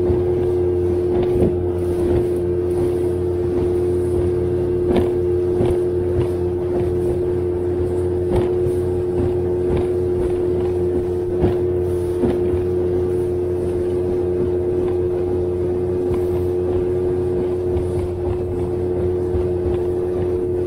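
Small boat's outboard motor running at a steady cruising speed, a constant hum with a steady tone on top. The hull slaps on the chop every second or two.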